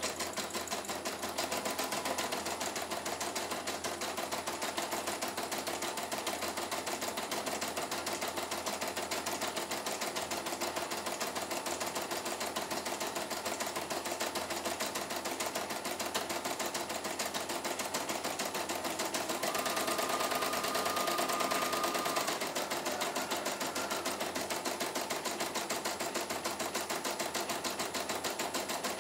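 CNY E900 computerized embroidery machine stitching a design: a rapid, even clatter of needle strokes over the hum of its motors. About two-thirds of the way through, a higher steady whine joins it for about two seconds.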